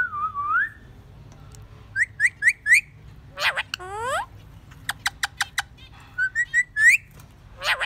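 Pet parrot whistling: a wavering whistle, then a run of four quick rising notes, several upward-swooping calls, a few sharp clicks, and a climbing series of short notes near the end.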